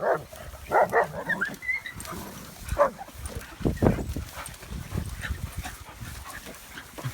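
Dogs barking in short bursts, several sounds spread through the time, with a few brief high yips.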